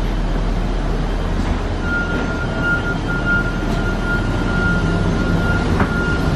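Steady machinery rumble and air-handling hiss at an airliner's boarding door, with a steady high whine that starts about two seconds in.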